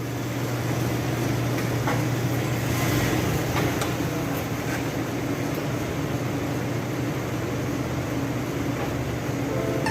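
A 1998 Ford Ranger running with a steady drone, and a few faint knocks between about two and four seconds in.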